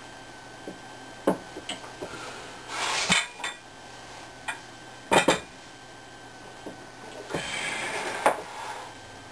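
Glassware being handled on a wooden workbench: a glass lid and glass dishes knock and clink as they are set down, with scraping as glass slides on the bench. Several separate knocks, the loudest about five seconds in.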